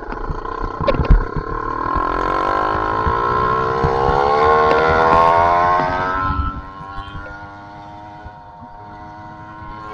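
YD85 two-stroke bicycle engine with a Master Blaster exhaust pipe revving as the bike accelerates, its pitch climbing for about five seconds, then backing off at about six and a half seconds to a lower, quieter steady run. Wind rumbles on the microphone underneath.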